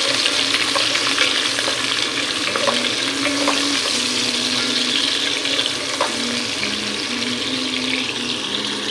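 Sliced onions sizzling steadily as they fry in hot oil in a pot, stirred with a spatula, with a few light clicks of the spatula against the pan.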